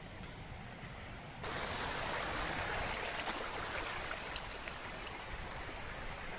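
Small mountain stream rushing over rocks. It comes in suddenly about a second and a half in and runs steadily, over a low rumble of wind on the microphone.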